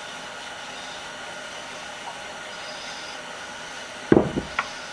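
Steady hum of the shop, then a quick run of sharp knocks about four seconds in and a single click just after: metal vise parts being handled and set down during reassembly after oiling.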